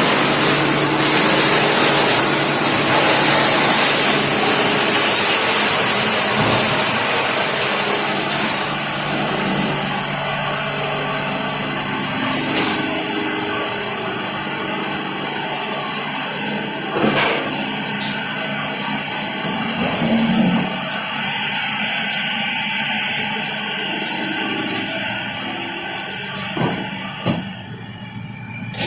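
Machinery running: a steady mechanical noise with a strong hiss that thins out partway through, with a few sharp knocks near the end.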